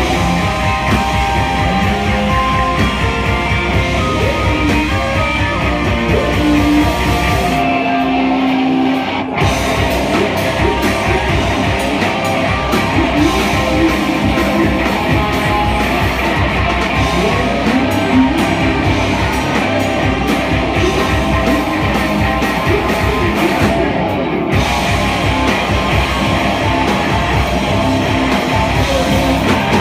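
Live rock band playing loud: electric guitars, bass and drum kit, with a vocalist singing into a microphone. About eight seconds in the drums drop out for a moment, leaving a held note, then the full band comes back in.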